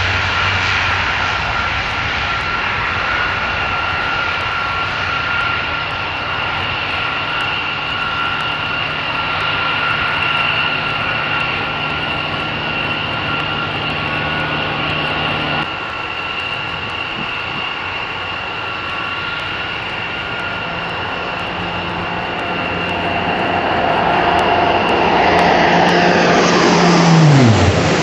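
Lockheed C-130J Hercules' four Rolls-Royce AE 2100 turboprops running at high power with a steady turbine whine. The sound grows louder as the plane takes off and comes low toward the listener. Near the end it passes overhead and the propeller note drops sharply in pitch.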